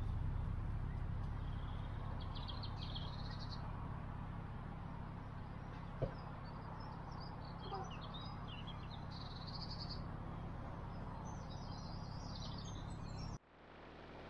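Small songbirds chirping and singing in short phrases, over the steady low hum of an idling narrowboat engine. A single sharp click comes about six seconds in.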